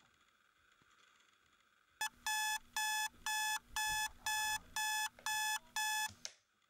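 Digital bedside alarm clock going off: a run of electronic beeps, about two a second, starting about two seconds in and stopping suddenly about four seconds later.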